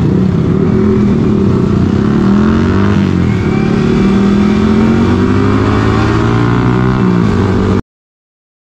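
Motorcycle engine running under load, its pitch rising and falling as the throttle opens and closes. The sound cuts off abruptly near the end.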